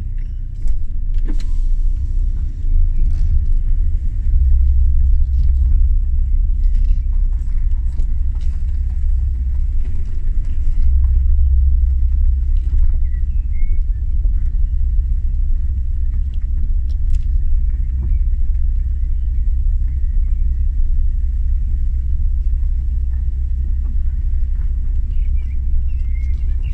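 Car driving slowly along a gravel track, heard from inside the cabin: a steady low rumble of engine and tyres on gravel, with scattered small clicks throughout.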